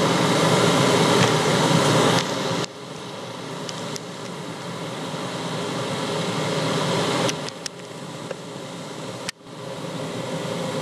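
WMF 3 kW electric kettle heating a litre of water just short of the boil: a steady rushing hiss as steam bubbles form and collapse on the element, the sign that the water is nearing the boil. The sound drops away abruptly twice, then builds back up.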